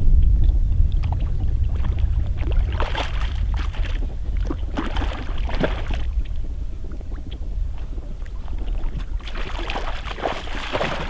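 Water splashing in several surges as a hooked rainbow trout thrashes at the lake surface beside a landing net, over a steady low wind rumble on the microphone.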